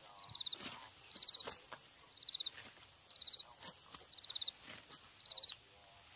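An insect chirping about once a second, each chirp a short buzzy trill of rapid pulses, six times. Between the chirps come crisp swishes and snips of rice stalks being cut with sickles and rustled.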